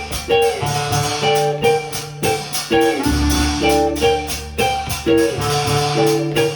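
Small acoustic swing band playing an instrumental intro: rhythmic strummed guitar and a steady percussive beat, with double bass and clarinet over it.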